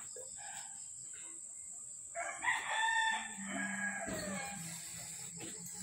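A rooster crowing once, starting about two seconds in: a drawn-out call of about two seconds that sags in pitch toward its end. A steady high-pitched whine runs underneath, and a low hum comes in partway through.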